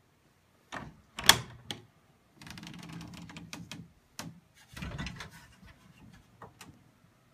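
Antique wooden armoire door being unlatched and opened: a few sharp clacks of the latch, the loudest about a second in, then two stretches of rough wooden scraping as the door moves, with lighter knocks between and near the end.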